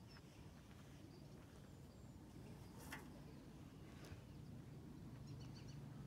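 Near silence: faint outdoor ambience with a low rumble, a couple of soft clicks, and a short run of small bird chirps near the end.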